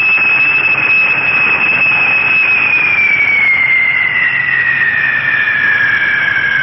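Jet engines of a four-engined airliner landing: a loud rushing roar with a high whine that holds steady, then slides down in pitch from about halfway through as the plane touches down.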